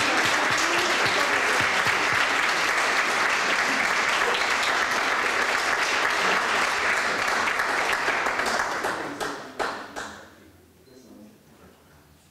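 Audience applauding steadily, dying away about nine to ten seconds in with a few last scattered claps.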